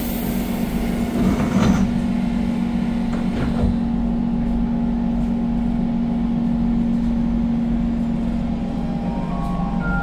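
SMRT C651 train heard from inside the carriage: the doors shut with a thud about a second and a half in, then the train pulls away over a steady low electrical hum. Near the end whining tones from the traction equipment appear and step up in pitch as it picks up speed.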